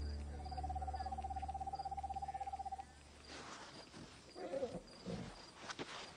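An owl's trill: one steady, rapidly pulsing note held for about two and a half seconds, then breaking off. Faint rustles and a few soft knocks follow.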